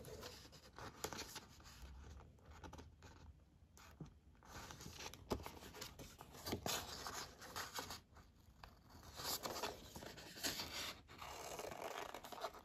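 Faint rustling, sliding and light tapping of paper sheets being handled, with scissors beginning to cut into a sheet near the end.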